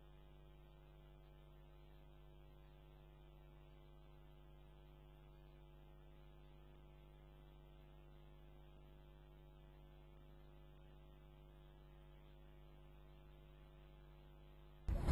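Near silence with a faint, steady electrical hum and no other sound.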